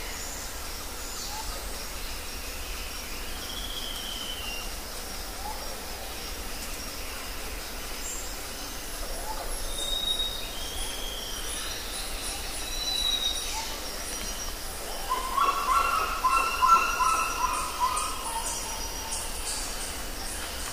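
Mixed wild birdsong: assorted whistled chirps and calls from several birds over a steady background hiss. About fifteen seconds in comes a loud run of rapid, repeated chattering calls.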